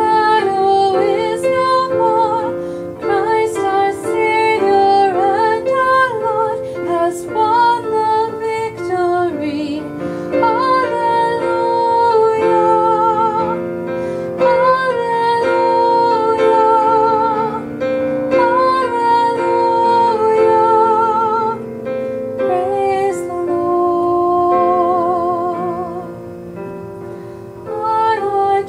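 A song: a woman singing a melody with vibrato over piano accompaniment.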